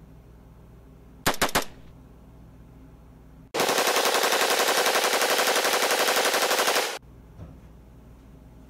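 A burst of three gunshots about a second and a half in, then about three and a half seconds of continuous rapid automatic gunfire that starts and cuts off abruptly. It is a dubbed machine-gun sound effect: the gun shown is a lever-action spring BB gun, a Daisy Model 99, that fires single shots only.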